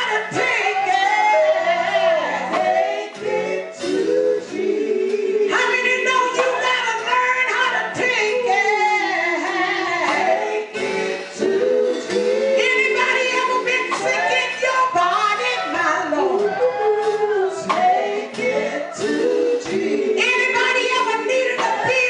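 Gospel vocal group singing live: a female lead voice with backing singers, over keyboard accompaniment.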